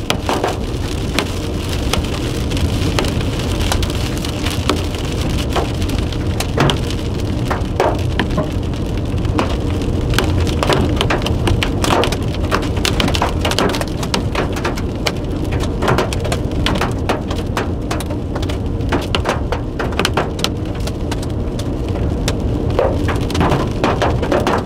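Raindrops striking the windshield and body of a moving car, heard from inside the cabin as many sharp ticks over steady road and engine noise. The ticks come thicker in the second half.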